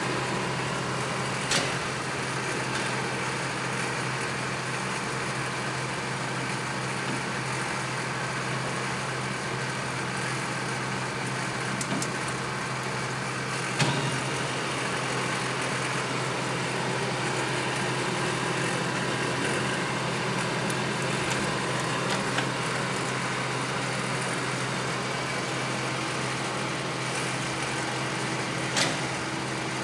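Clausing Colchester Master 2500 engine lathe running with its saddle on slow power feed along the ways: a steady motor and gearbox hum, with a few short clicks, the sharpest about halfway through.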